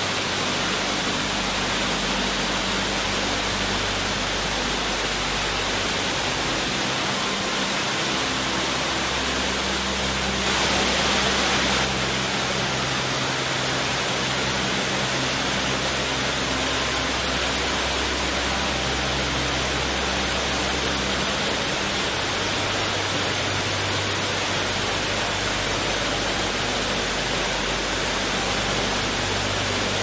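Water fountain splashing and rushing steadily, swelling briefly louder about ten seconds in.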